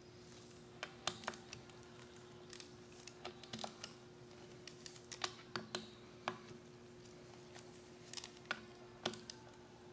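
Hand ratchet and 10 mm socket clicking and clinking as camshaft bearing cap bolts on an overhead-cam cylinder head are loosened: scattered light, irregular clicks, some in quick little clusters.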